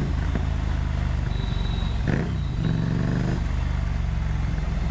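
Ducati Monster 797's 803cc air-cooled L-twin running under way through its exhaust. The engine pitch dips and climbs again about two seconds in.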